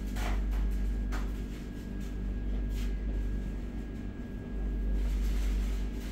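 Steady low rumble and hum inside a Vande Bharat Express chair car coach, with a few faint clicks.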